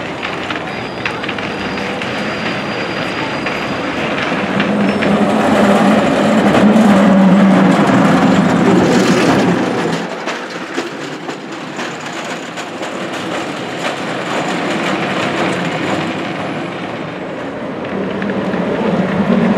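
San Francisco cable car rolling along its street rails, a steady rumble and clatter that grows louder as the car comes close. The sound drops abruptly about ten seconds in, then builds again as another car approaches.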